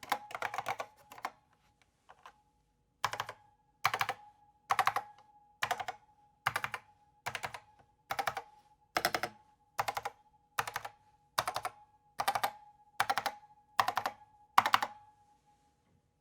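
IBM Pingmaster keyboard with SKCC Green Alps switches being typed on: a short run of quick keystrokes, then about fifteen single key presses a little under a second apart. Each press sets off a steady ringing ping that hangs on between strokes.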